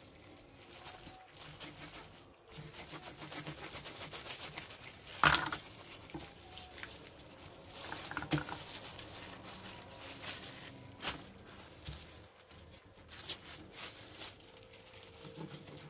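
Gloved hands pulling the flesh of a raw grey mullet away from its backbone to open the fish flat, making soft wet handling noises and light rustling, with a few sharp clicks, the loudest about five seconds in.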